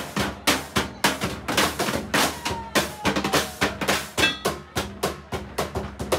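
Junk-percussion ensemble playing a steady, fast drum groove, about four strikes a second, with drumsticks on blue plastic water barrels and scrap metal.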